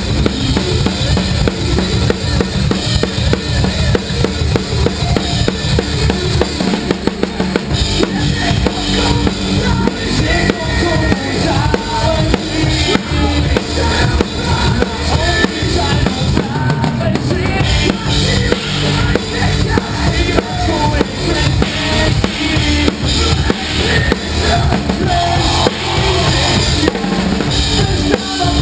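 Mapex drum kit with Anatolian cymbals played hard and fast in a rock song: rapid bass drum, snare hits and cymbal crashes over the rest of the band. The bass drum drops out briefly about seven seconds in.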